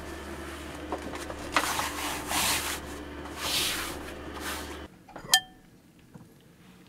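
Padded insulated window cover rubbing and scraping against the van's window frame as it is pressed into place, in a few separate strokes over a low steady hum. Both stop abruptly about five seconds in, and a single sharp clink with a short ringing tone follows.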